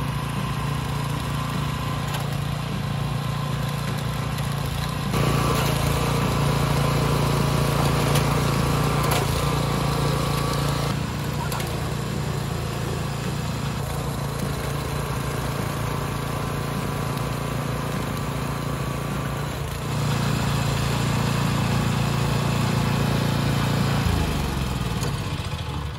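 Trench digger engine running steadily, growing louder twice for several seconds at a time, then slowing down near the end.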